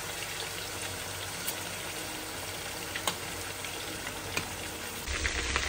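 Marinated chicken pieces sizzling in hot sunflower oil in a frying pan over high heat: a steady hiss with a few faint crackles.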